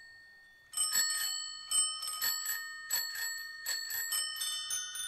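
Many bicycle bells ringing in quick, irregular strikes, each ring hanging on, as a passage of a recorded song; they start after a brief lull.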